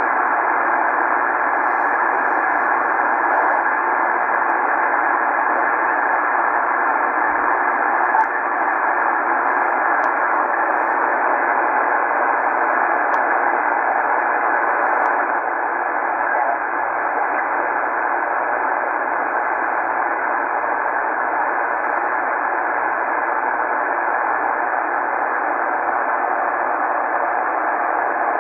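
Steady hiss of static from a Tecsun PL-990x shortwave receiver in lower sideband mode as it is tuned across empty stretches of the 80 m amateur band. The noise is narrowed to a voice-width band by the single sideband filter, and no station comes through.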